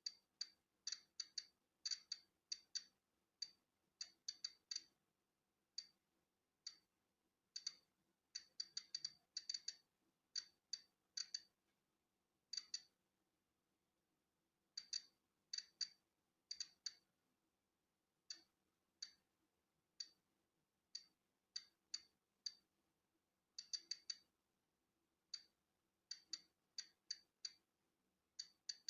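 Polon EKO-C digital Geiger counter clicking at natural background radiation, each click a detected particle. The short, high clicks come at random intervals, about two a second on average, bunched in quick runs with gaps of a second or two between.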